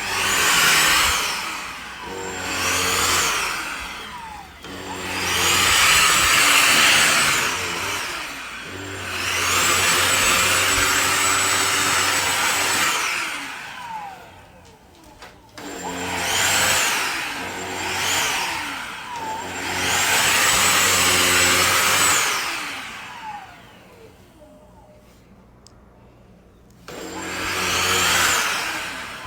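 Kenmore DS1020 16V cordless stick vacuum's motor switched on and off about eight times, in bursts of one to four seconds. Each burst has a high whine that climbs as the motor spins up, holds steady while it runs, and slides down as it winds down. There is a quiet pause of a few seconds near the end before one last burst.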